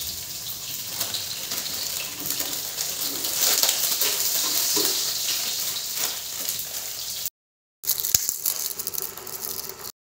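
Hot oil sizzling in a wok as chopped ingredients are scraped in from a plate, with scattered clicks and knocks of a metal spoon against the plate and pan. The sound cuts out abruptly twice.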